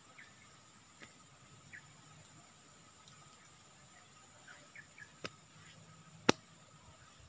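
Quiet forest ambience: a steady high-pitched insect drone, with a few short faint bird chirps. Two sharp clicks come near the end, the second much louder.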